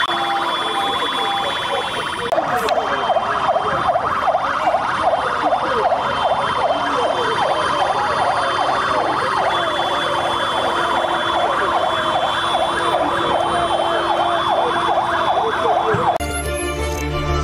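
Police riot truck's siren sounding in a quick repeating rise-and-fall warble, about two and a half cycles a second, after a faster pattern for the first two seconds. It cuts off suddenly near the end as theme music starts.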